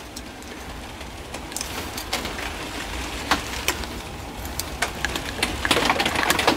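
Light metallic ticks and scrapes of a thin steel rod being worked inside the gearbox end of a BSA Dandy engine casing, scattered at first and coming more often near the end, over a steady low rumble.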